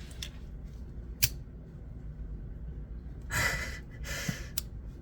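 A small magnet snaps sharply into place in the metal frame of a fidget slider with a single click about a second in. Two breathy sighs follow, then a lighter click.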